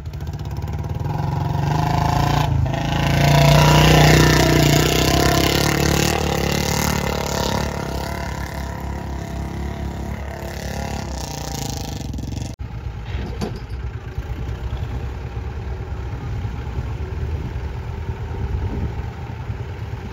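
Tractor engine running under load while driving through deep mud. It revs up to its loudest about four seconds in and then runs on more steadily.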